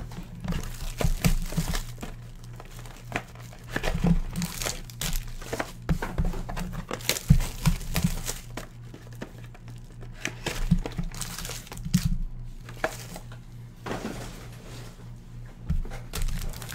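Foil-wrapped trading card packs crinkling and rustling as they are handled, taken out of a small cardboard box and set down on a table mat, with irregular soft taps. A steady low hum runs underneath.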